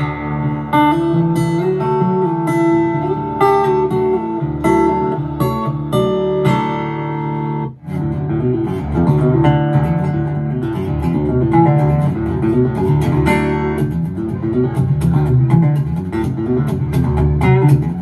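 Guitar-led music played through a portable Bluetooth speaker as a sound test: first the Jete S7, then, after a brief drop about eight seconds in, the Anker Soundcore Flare.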